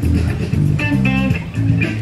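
Live rock band music dominated by guitar, with bass guitar playing notes that change every fraction of a second.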